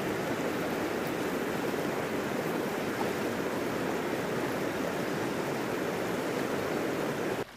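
Water sloshing and splashing steadily as a herd of cattle wades through a shallow pond; it cuts off abruptly near the end.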